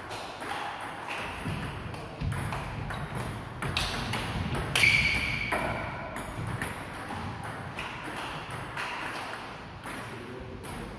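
Table tennis ball clicking off paddles and the table in a fast rally, a run of short sharp ticks. A short high-pitched squeak stands out about five seconds in.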